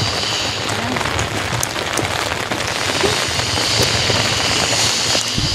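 Steady hissing noise, like rain on pavement, with a few faint clicks.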